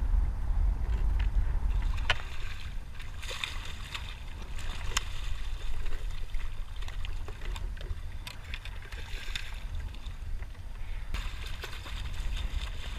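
Water splashing as a hooked cobia thrashes at the surface beside a kayak and is scooped into a landing net, with a few sharp knocks and a steady low rumble underneath. The splashing comes in bursts, about three seconds in and again near the end.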